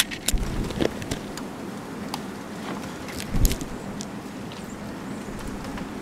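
Grackles moving about a seed pile on snow: scattered sharp ticks and clicks, with a low thump at the start and another about three and a half seconds in, over a steady low background rumble.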